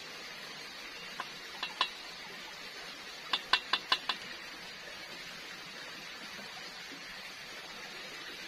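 Wooden spatula working fried potatoes in a small black metal pan and knocking against it: a few light knocks about a second in, then a quick run of five ringing knocks around three and a half seconds in, over a steady hiss.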